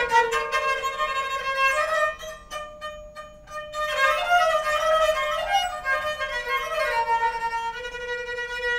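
String instrument music: plucked notes ringing for the first two seconds, then, from about four seconds in, a bowed melody over a held drone note.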